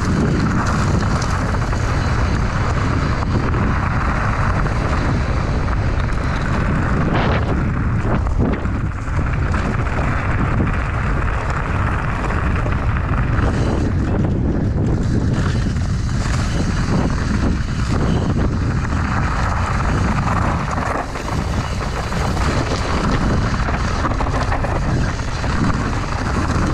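Wind buffeting an action camera's microphone while mountain bike tyres rumble over a dry dirt, gravel and leaf-covered trail at race speed: a loud, steady roar that briefly dips twice.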